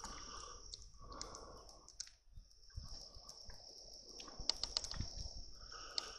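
Steady high-pitched trilling of night insects such as crickets, with a soft hiss beneath. Scattered light clicks come through, bunched past the middle.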